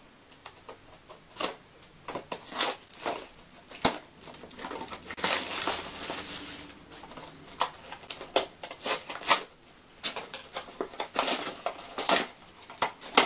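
Toy packaging crinkling and rustling in the hands as it is handled and opened, with irregular crackles and snaps.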